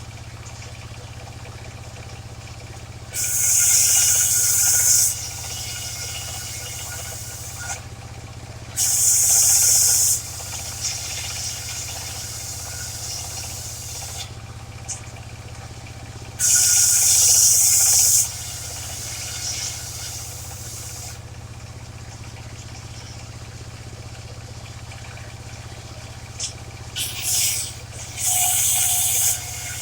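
Engine-driven circular saw of a mobile sawmill ripping waru wood: a steady engine hum, with four loud bursts of high hissing noise, each one to two seconds long and several seconds apart, as the blade cuts through the timber.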